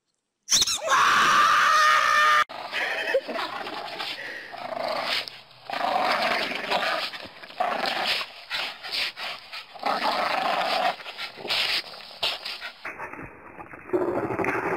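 A loud, held high-pitched squeal for about two seconds that cuts off abruptly. Then dogs growl and bark in bursts as they play rough and tug on a rope.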